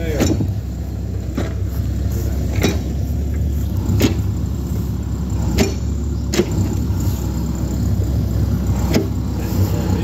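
Diesel engine of a backhoe running steadily at work, with sharp knocks at irregular intervals.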